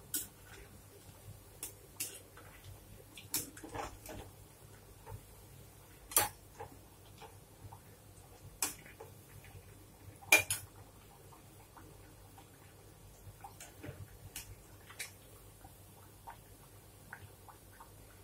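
Metal skimmer ladle clinking and knocking against a metal kadai of frying oil: about half a dozen sharp clinks spread out, the loudest about six and ten seconds in. Faint small crackles of the frying oil come in between, thicker in the later part.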